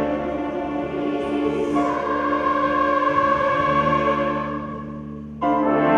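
Orchestra playing sustained chords that swell and then fade away, with a sudden loud full-ensemble entry near the end.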